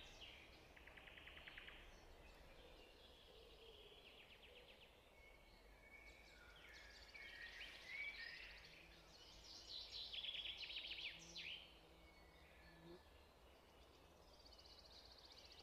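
Faint birdsong: several birds chirping and giving fast trills, busiest around the middle, over a faint steady low hum.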